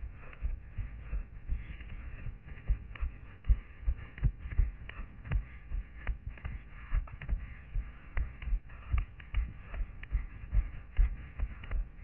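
A runner's footfalls thudding about three times a second, carried through a head-mounted camera, with steady rustling as low shrubs and dry grass brush past.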